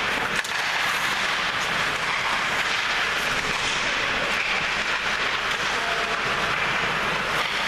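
Ice hockey play: skate blades scraping on the ice over a steady hiss, with a few sharp clacks of sticks and puck.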